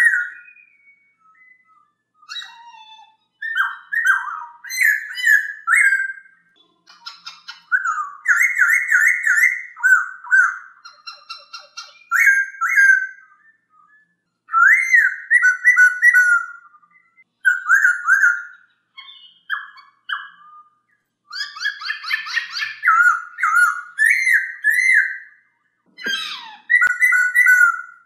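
Black-throated laughingthrush (poksay Hongkong) singing: loud, clear whistled phrases, each a quick run of repeated notes sweeping up and down, coming in bursts of one to three seconds with short pauses between.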